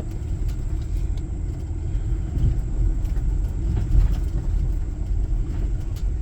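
Vehicle driving slowly over a rough dirt road: a steady low rumble of engine and tyres, with a few small knocks from the bumpy ground.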